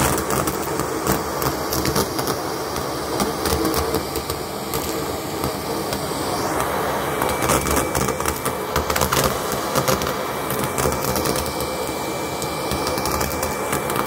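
Henry cordless vacuum cleaner running steadily as its crevice tool sucks up foil confetti and small jingle bells from a carpet, with many quick clicks and rattles as pieces are pulled in.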